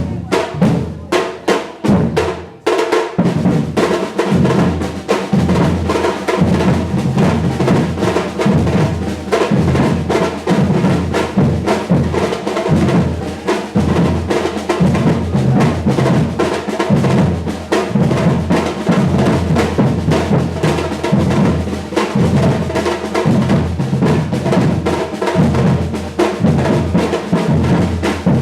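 A Brazilian batucada drum ensemble playing loud, with bass drums and snare drums. It opens with a few sharp unison hits and a brief gap, then settles into a full, driving groove from about three seconds in.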